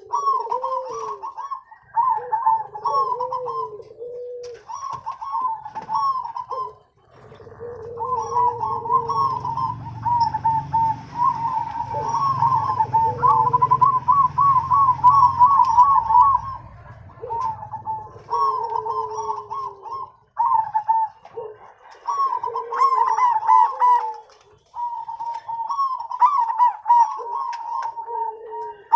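Zebra doves (perkutut) cooing in repeated rolling, warbling phrases with short pauses between them, a higher and a lower voice overlapping. A low rumble sits under the calls in the middle of the stretch.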